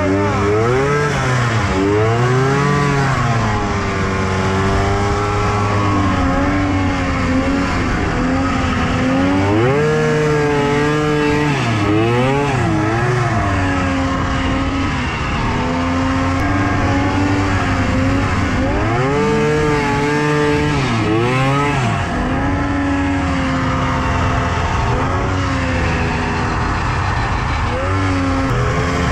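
Polaris Indy XLT 600 snowmobile's three-cylinder two-stroke engine, heard from the rider's seat, revving up and falling back again and again as the throttle is worked through the snow. A steady rushing noise runs underneath.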